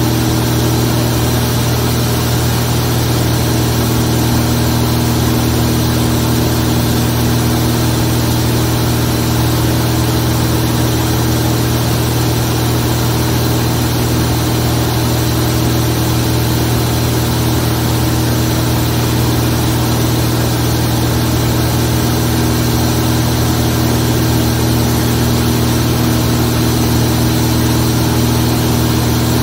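Zlín 42 light aircraft's piston engine and propeller running steadily at constant power, an even tone with no change in pitch.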